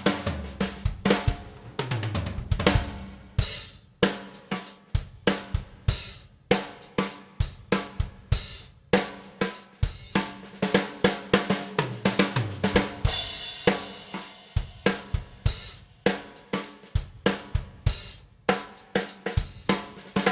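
Pearl Session Custom maple drum kit played as a groove: kick, snare and hi-hat, with fills running down the toms and crash cymbals struck every few seconds.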